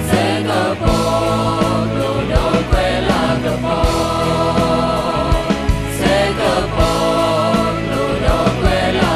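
A group of singers singing together over a live pop band, with a steady drum beat under sustained chords.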